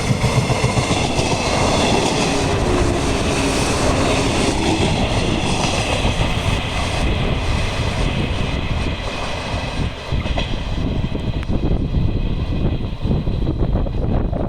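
JR West 115 series electric multiple unit passing through the station at full speed, loud throughout: a rush of wheel and rail noise with a set of high steady tones that fade over the first half, then rapid clattering of wheels over the rails.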